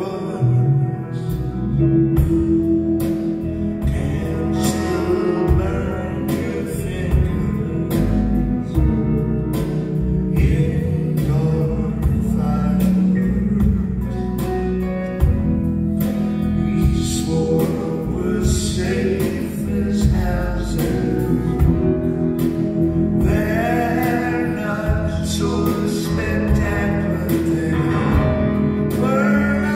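Live band playing a song through a theatre PA: electric and acoustic guitars over drums, with male singing.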